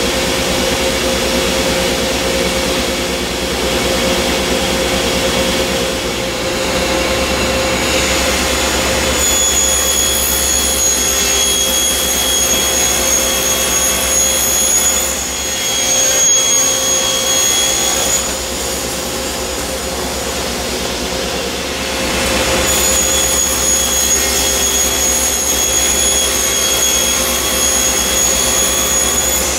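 Table saw and dust collector running steadily while a cabinet panel is crosscut on a crosscut sled. A high whine comes in twice, from about a third of the way in and again for the last quarter, each lasting several seconds as the blade cuts through the panel.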